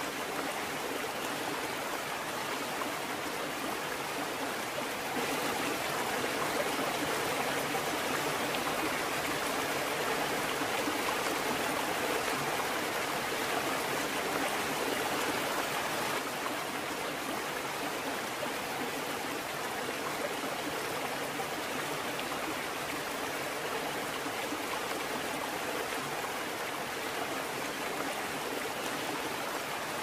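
Steady rush of running water, a stream or falls, with no music over it; it swells slightly for about ten seconds from around five seconds in.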